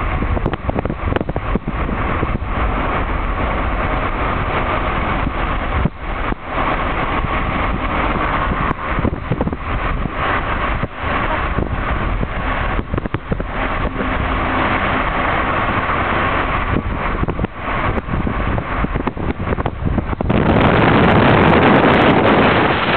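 Steady road and engine noise inside a moving car, with wind on the microphone. About twenty seconds in the wind noise suddenly grows louder.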